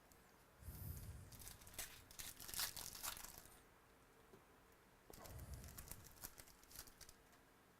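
Trading card pack wrapper being torn open and crinkled, with cards handled. It comes in two spells of crackly rustling with soft low thuds, the first about half a second in and the second about five seconds in.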